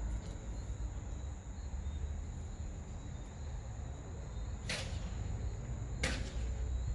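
A steady high, thin tone over a low rumble, broken by two short swooshes about five and six seconds in.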